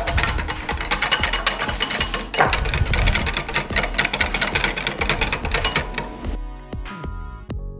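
Wire whisk beating egg yolks in a glass bowl, a rapid clinking of the wires against the glass, while hot lemon cornstarch filling is spooned in to temper the yolks. About six seconds in it gives way to background music.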